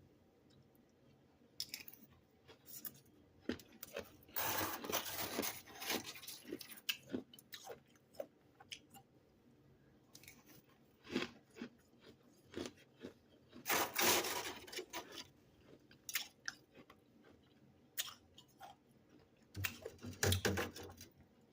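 Someone chewing mouthfuls of freezer frost close to the microphone: irregular bursts of crunching separated by short quiet pauses.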